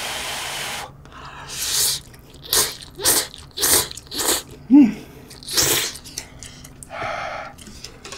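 Shin Ramyun noodles being slurped: one long slurp at the start, then a run of short quick slurps about half a second apart. There is a brief voiced hum about five seconds in.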